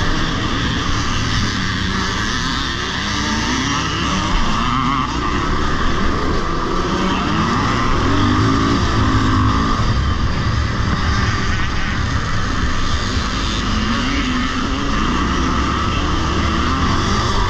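Vintage motocross motorcycle engine heard close up from a camera mounted on the bike, revving up and down repeatedly as it is ridden hard on a dirt track, with the engines of the other bikes in the pack mixed in.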